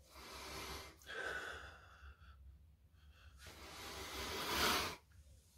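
A man breathing heavily through the mouth: three loud breaths, the last one longer and growing louder before it stops.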